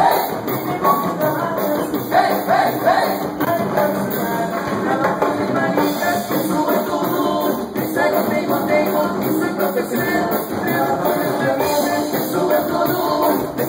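A live band playing a medley at a sound check, with a steady beat and a wavering melody line.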